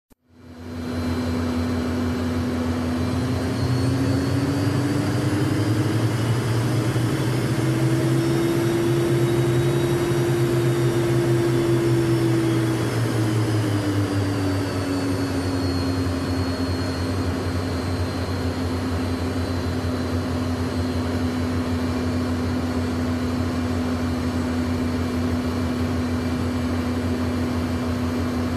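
Learjet jet engines heard from inside the cabin while taxiing to the runway: a steady hum and whine that fades in, rises in pitch a few seconds in, holds, then drops back to a steady tone about halfway through.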